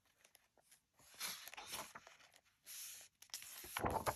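Pages of a hardcover picture book being turned and smoothed flat by hand: soft paper rustling in a few short bursts, loudest near the end.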